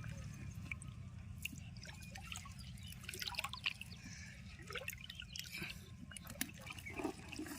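Water dripping and trickling, with scattered small splashes and clicks over a low steady hum.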